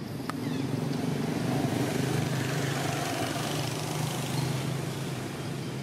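A motor vehicle engine running steadily, swelling in the first second and easing slightly near the end, with a single sharp click just after it starts.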